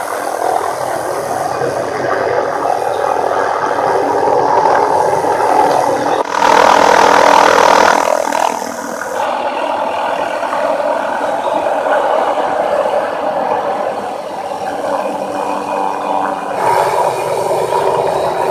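Helicopter running steadily while working a suspended tree-trimming air saw. It grows louder and brighter for a stretch about six to eight seconds in.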